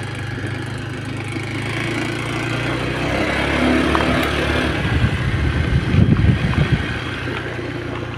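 An engine running steadily, getting louder and rougher about five to seven seconds in, then easing off.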